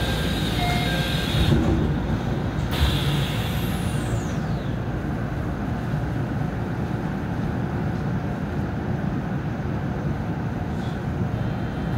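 Stationary JR 313 series electric train heard from inside its cab: compressed air hisses from the brake system for nearly three seconds, then the train's idling equipment keeps up a steady low hum. A thin high whine falls in pitch about three to five seconds in.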